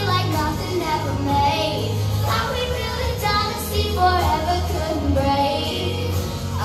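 A child singing into a handheld microphone over backing music, the voice holding and bending long sung notes.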